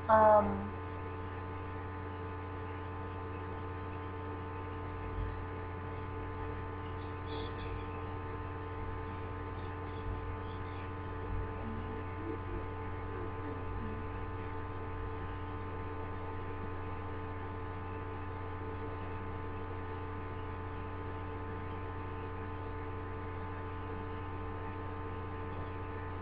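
Steady electrical mains hum, a stack of several constant tones, with a brief vocal sound right at the start and a few faint small noises in the middle.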